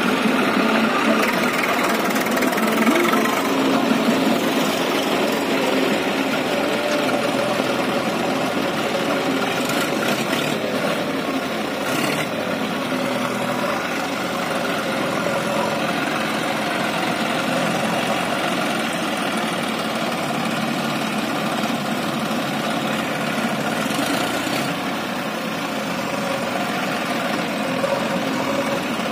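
Diesel engines running steadily together: a John Deere 5045D tractor idling while a JCB backhoe loader works beside it, loading earth into the tractor's trolley.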